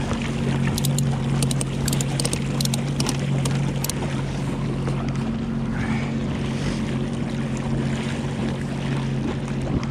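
Sea-Doo Fish Pro personal watercraft engine idling steadily. Over it, a quick run of sharp clicks in the first few seconds as a cargo strap's buckle is worked.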